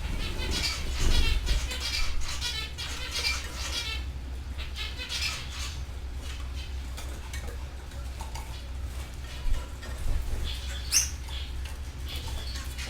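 Canaries chirping and twittering in rapid trills, busiest in the first half, with wings fluttering and a sharp high call a little before the end; a steady low hum runs underneath.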